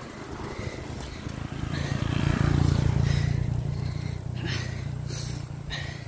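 A motor vehicle's engine hums and grows louder to a peak about two and a half seconds in, then eases off, heard over the rush of riding along the road.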